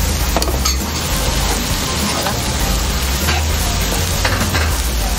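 Hakka stir-fry of dried squid, dried tofu, pork and celery sizzling steadily in a frying pan over a gas flame as it is tossed and stirred to cook off the last of the sauce. A few short knocks and scrapes of the utensils against the pan come through.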